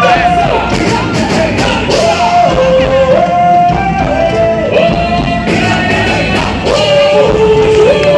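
Loud boi-bumbá toada music: a lead melody of long held notes that slide from one pitch to the next, over a dense beat.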